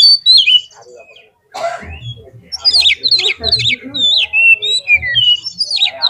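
Oriental magpie-robin (kacer) singing energetically: a loud, varied run of short whistled notes, many falling quickly in pitch. The song breaks off briefly about a second in, then resumes without pause.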